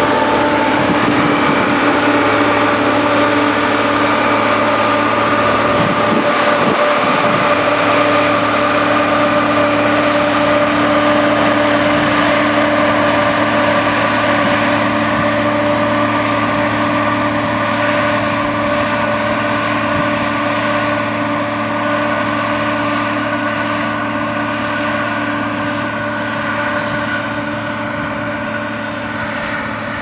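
Hidromek MG 330 motor grader's diesel engine running steadily while it grades soil, a constant engine note that fades slightly over the second half as the machine pulls away.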